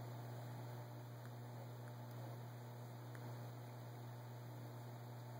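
Steady low electrical hum with a faint hiss, and a few very faint ticks.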